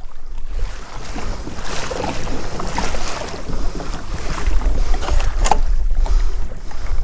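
Water splashing and rushing against a kayak's hull as it moves through choppy water, with wind buffeting the microphone as a low rumble.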